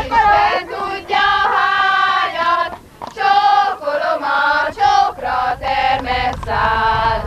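A group of women singing a Hungarian folk song together in unison, on long held notes. There is a short break for breath about three seconds in.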